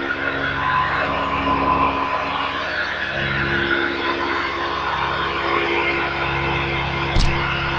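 Hoover Decade 80 upright vacuum cleaner running steadily, a motor hum with a rush of air, with a sharp knock about seven seconds in.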